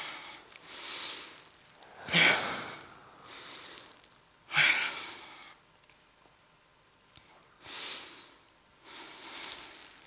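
A person breathing sharply and noisily into a close microphone: about six separate breaths with pauses between them, two of them much louder than the rest.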